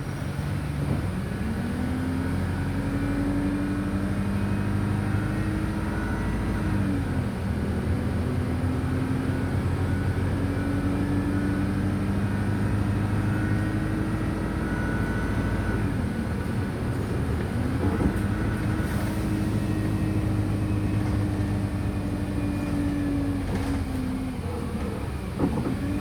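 Wright StreetLite DF single-deck bus under way, heard from inside: the engine's note climbs and then drops back sharply three times over a steady low road rumble, with a few light rattles.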